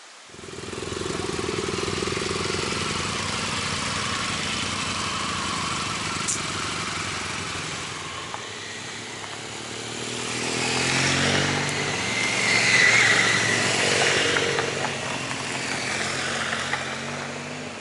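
Motorcycle engine running over a steady rush of noise, its pitch rising and falling about ten seconds in as it revs.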